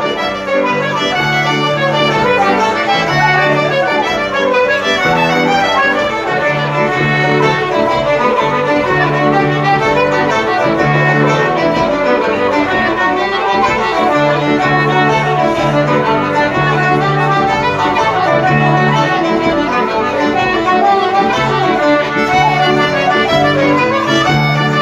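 Traditional Irish session music, a jig played by flute, concertina, fiddle, tenor banjo and keyboard together. The keyboard keeps up a steady, repeating bass-chord accompaniment under the melody.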